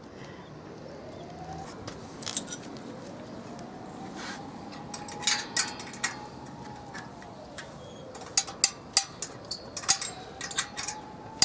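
Wrench on a rusted steel nut at a bicycle's kickstand mount, giving scattered light metallic clicks and clinks as the nut is worked loose, more frequent near the end.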